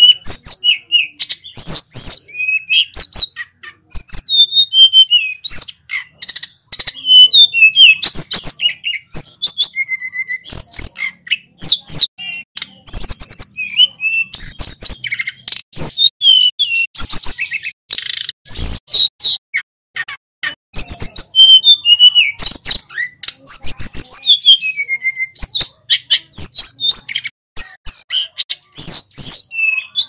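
Male hill blue flycatcher (sulingan gunung) singing: a near-continuous string of high, clear whistled phrases that swoop up and down, broken by short pauses.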